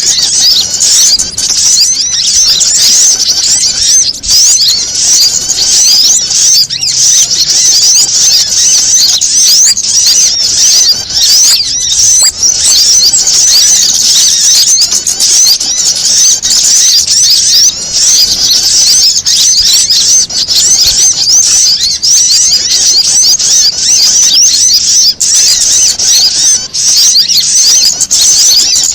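Bird-lure recording of small songbirds calling in agitation: a loud, dense, unbroken mass of high, rapid chirps and twitters, mixed from prinia and sunbird calls with other small birds, meant to draw wild birds in.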